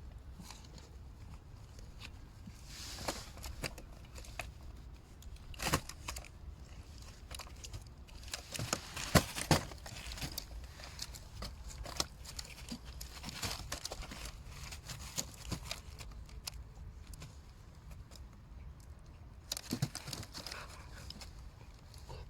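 Irregular rustling and crinkling with scattered sharp clicks over a low steady rumble.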